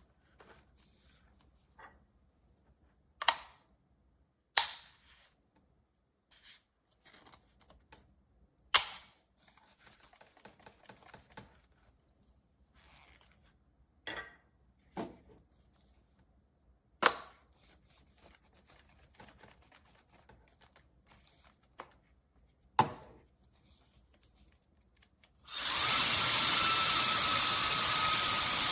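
A handful of sharp, separate clicks and knocks, then near the end a SUPGALIY mini ionic hair dryer switches on and runs: a loud, steady rush of air with a faint high motor whine.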